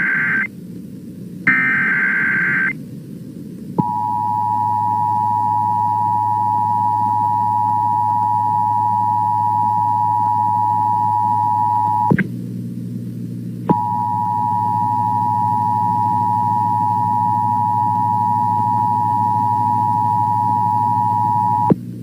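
Emergency Alert System broadcast: two short bursts of warbling data header tones, then the steady two-tone EAS attention signal, which breaks off with a click for about a second and a half midway and resumes until just before the spoken warning. A low hum runs underneath.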